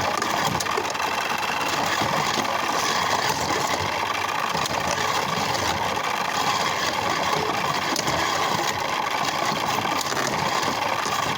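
Small electric motor of a motorized Beyblade stadium running steadily, with spinning tops whirring in the plastic bowl.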